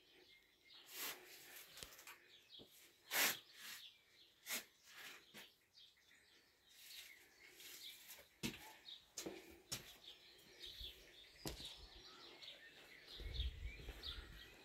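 Quiet outdoor background with faint bird chirps, scattered clicks and rustles, and a brief low rumble near the end.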